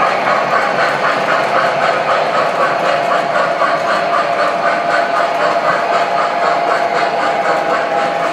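O scale model trains running on the layout: a steady hum with rapid, even clicking, about four or five clicks a second.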